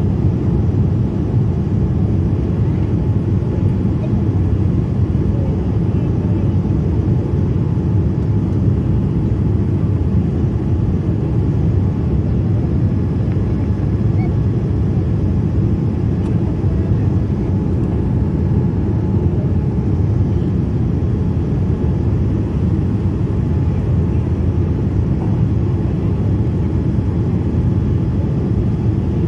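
Steady cabin rumble of a Boeing 787-9 airliner on descent: engine and airflow noise heard inside the cabin from a window seat over the wing, even and unbroken, heaviest in the low range.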